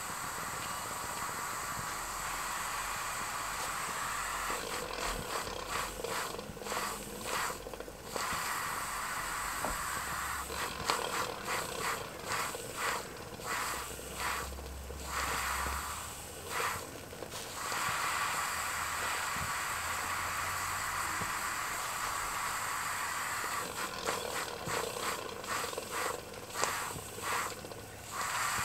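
Miniature live-steam beam engine running off its small boiler: a steady hiss of steam, with stretches of quick rhythmic puffing from the engine's exhaust that come and go.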